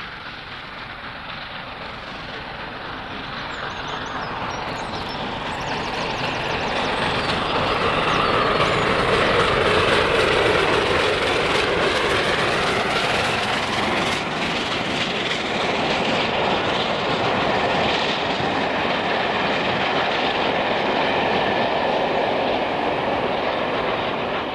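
Steam-hauled express passing: LNER A4 Pacific 60007 'Sir Nigel Gresley', a three-cylinder steam locomotive, approaches and goes by, growing louder up to about nine seconds in. Its train of coaches follows, the wheels running on the rails, and the sound begins to fade near the end.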